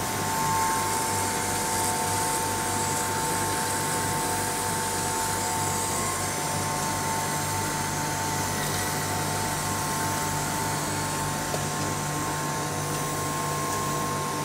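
PP plastic profile extrusion line running: a steady machine hum with a constant high whine and a hiss over it.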